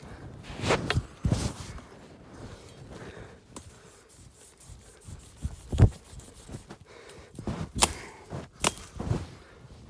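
Irregular rustling and scraping broken by about half a dozen sharp knocks, spaced unevenly: hand work cutting down sneezeweed.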